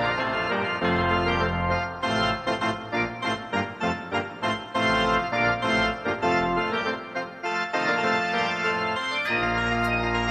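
Instrumental passage of a pop-musical cast recording with no singing: organ-like keyboard chords over a band, played in short, choppy stabs through the middle.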